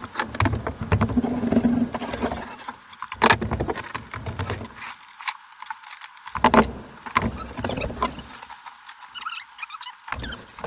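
Fast-forwarded sounds of drywall being hung: sharp knocks and clicks of drywall sheets and tools, the loudest about three seconds in and again after six seconds, over a choppy, chirpy clatter.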